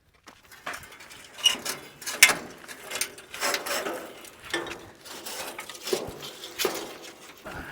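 Scrap metal being handled: irregular metallic clinks, clicks and scrapes, several a second at times.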